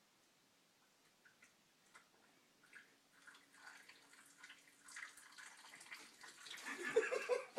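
Mountain Dew poured in a stream from a height into an open mouth, splashing and dripping. It starts as scattered drips and builds into a denser spatter that grows louder near the end.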